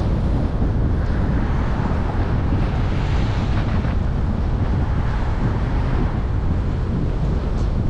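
Steady low rumble of a car driving along a road: tyre and road noise mixed with wind buffeting the microphone.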